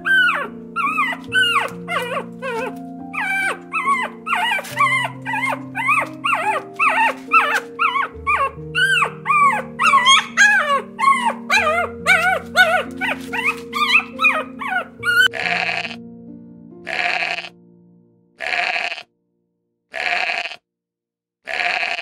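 Background music under a quick run of short, high animal calls that bend in pitch, a few each second, then five separate bleats with short gaps between them in the last six seconds.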